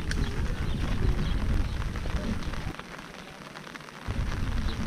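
Rain falling, under a heavy, choppy low rumble of wind on the microphone that drops away for over a second about three seconds in.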